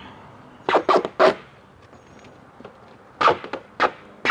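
Duct tape being pulled off the roll in short, loud rips, coming in two quick groups of about three.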